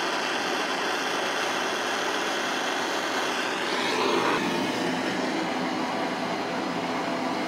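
Handheld propane torch burning with a steady hiss as it heats a brass part to break down the cyanoacrylate glue holding it to the chuck. The hiss swells briefly about halfway through.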